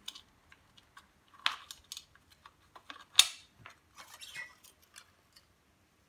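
Irregular light clicks and taps of plastic and metal parts being handled and fitted on a Henry vacuum cleaner's floor head, with one sharp click about three seconds in.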